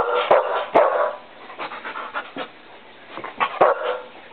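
Samoyed puppy giving a few short barks and yips, one near the start, one about a second in and another near the end, with a few sharp clicks among them.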